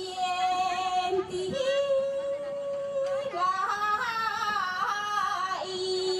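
A woman singing a Hengchun folk song through a microphone, in long held notes that slide from one pitch to the next.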